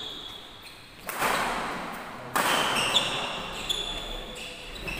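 Badminton rackets striking the shuttlecock during a fast rally, two loud hits about a second and two seconds in, each ringing out in the hall's echo. Between them, sports shoes squeak briefly on the court floor.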